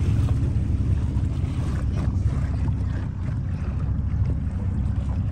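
Steady low rumble of wind buffeting the microphone aboard a boat under way on open water, with a light wash of water beneath it.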